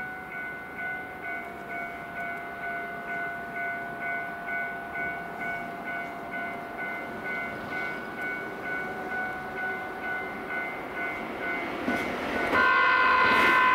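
An electronic warning bell rings steadily, about two strikes a second. Near the end the KiHa 261 series 1000 diesel limited express sounds its horn, loud and sudden, as it comes through.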